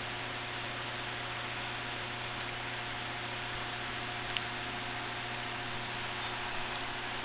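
Steady hiss with a low electrical hum, the recording device's own noise, with one faint click about four seconds in.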